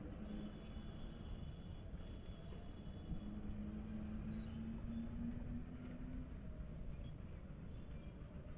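Quiet rural outdoor ambience: a low steady rumble with faint birds chirping, and a steady low hum from about three to six seconds in.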